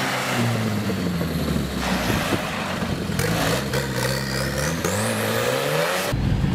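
Turbocharged old tractor engine roaring, its revs rising and falling again and again as it is driven hard; a thin high whistle climbs steeply in pitch about four seconds in. Near the end the sound switches abruptly to a deeper, steadier rumble.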